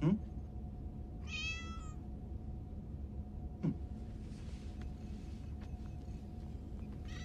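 Domestic cat meowing: one meow about a second in and another starting at the very end. Two brief falling sounds come at the start and midway.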